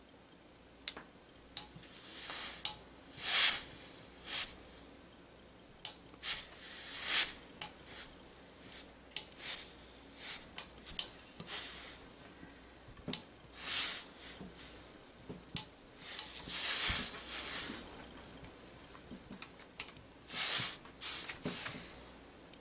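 Gravity-feed steam iron giving repeated bursts of steam hiss, each about a second long, while pressing fusible stay tape onto a knit neckline so it will not stretch. Sharp clicks and light knocks of the iron and handling come between the bursts.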